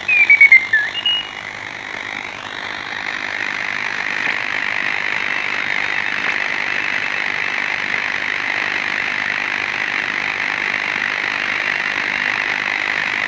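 Direct-conversion radio receiver's audio. For about the first second, whistling tones slide in pitch. They give way to a steady hiss of band noise that grows over the next couple of seconds and then holds.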